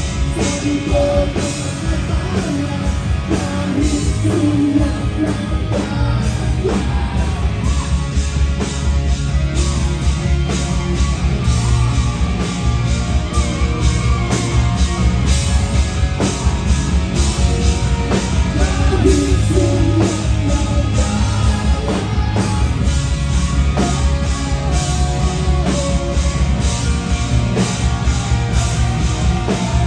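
Live rock band playing loud: electric guitars, bass and drums keeping a steady beat, with a voice singing over it.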